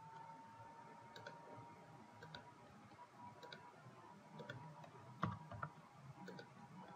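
Faint clicks of a computer mouse, roughly one a second, the loudest a little after five seconds in, over low room noise.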